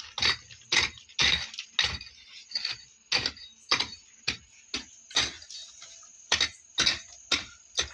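Pickaxe blows striking hard, stony earth, about two a second, each a sharp chop with a clatter of loosened gravel, as a shallow round hollow is dug.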